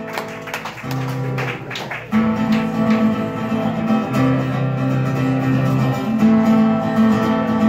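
Acoustic guitar strummed: a first chord rings, then steady, louder strumming begins about two seconds in.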